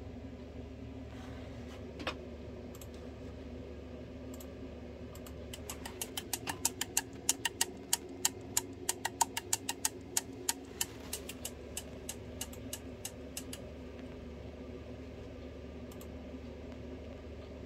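The AutoTune fuel solenoid valve in a Husqvarna 550XP Mark II's carburettor clicking rapidly as it is pulsed during a fuel valve test, about four or five clicks a second for some eight seconds, strongest in the middle and weakening before it stops. A single sharp click comes about two seconds in, over a steady low hum.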